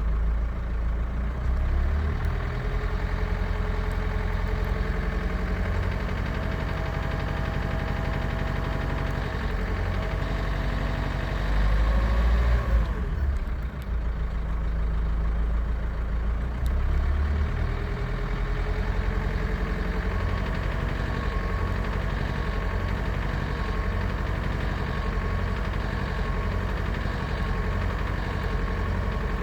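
Renault Kangoo's 1.5 dCi K9K diesel engine running just above idle, around 1250–1400 rpm, with a knock from its Delphi injectors in that speed range. The engine speed rises and falls several times and is loudest about twelve seconds in.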